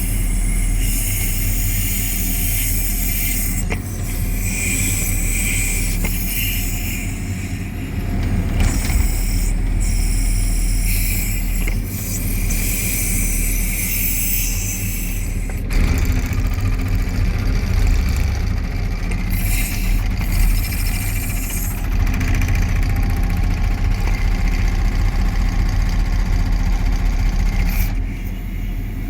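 JCB 3CX backhoe loader's four-cylinder diesel engine running steadily, with its hydraulic breaker hammering rapidly at concrete in stretches, most evenly in the last several seconds.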